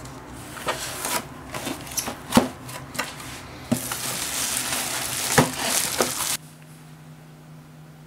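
Bubble wrap and cardboard packaging being handled, a crinkling rustle with many sharp clicks and snaps. It cuts off abruptly about six seconds in, leaving only a quiet steady low hum.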